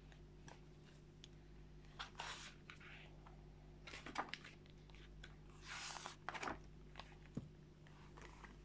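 Pages of a hardcover picture book being opened and turned by hand: a few faint paper swishes and light taps over a low steady hum.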